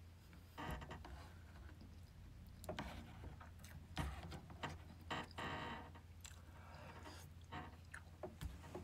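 Quiet eating sounds: scattered soft clicks of a spoon and chopsticks against plastic takeout bowls of rice and soft tofu stew, with chewing between them, over a low steady hum.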